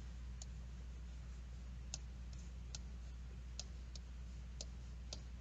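Faint, irregular clicks of a marker tip tapping and stroking on a whiteboard while words are written, about eight in all, over a steady low hum.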